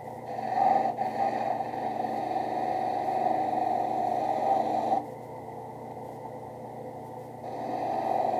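Drill press with a sanding drum running steadily, the edge of a leather holster held against the spinning drum: a rough grinding for about five seconds, then only the motor's hum, then the grinding again near the end.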